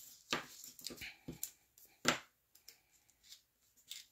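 Paper and card being handled and picked apart with a pointed craft tool as the liner is worked off a die-cut piece of double-sided adhesive paper: irregular soft rustles and small clicks, two sharper clicks about a third of a second in and about two seconds in.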